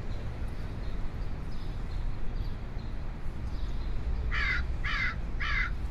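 A crow cawing: four short, harsh caws in quick succession about four seconds in, over a steady low outdoor rumble, with fainter calls earlier.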